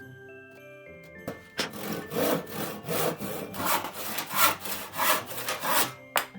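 Hand saw cutting through a wooden plank in quick, even back-and-forth strokes, about three a second. The sawing starts about a second and a half in and stops near the end, followed by a single sharp click.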